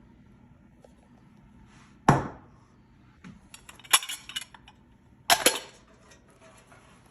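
Kitchen dishes and utensils knocking and clinking: a sharp knock about two seconds in, a short clatter around four seconds, and another knock about a second and a half later.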